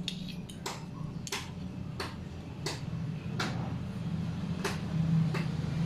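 A run of light, sharp ticks, about one every two-thirds of a second, over a steady low hum.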